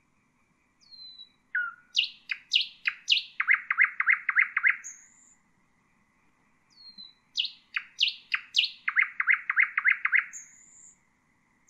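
Nightingale singing: two song phrases about six seconds apart, each opening with a short falling whistle and a few sharp notes, then a fast run of about seven repeated notes.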